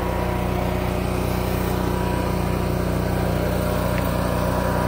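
Steady engine hum of a motorhome's onboard generator running.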